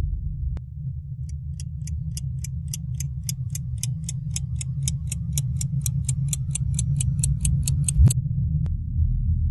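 Clock ticking fast, about four ticks a second, over a steady low drone. The ticking stops abruptly about eight seconds in on a sharp hit.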